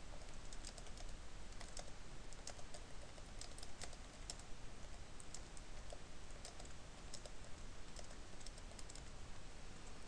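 Computer keyboard typing: faint, quick, irregular key clicks as a line of code is entered.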